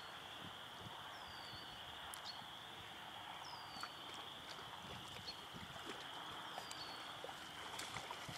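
Faint outdoor ambience: a steady high-pitched chorus, with a bird giving a short falling whistle three times, a couple of seconds apart.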